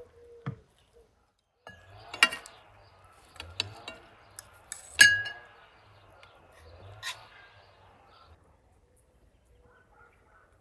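Metal serving utensils (spatula and cake server) clinking and scraping against ceramic plates: several sharp clinks, the loudest about halfway through with a short ring.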